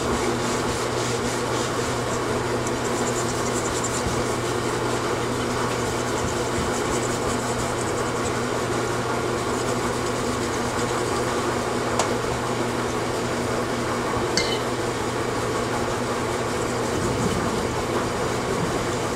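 Steady fan-like hum and hiss. A light click comes about twelve seconds in and a short scrape a couple of seconds later, from hands handling a motorcycle cylinder head on the bench.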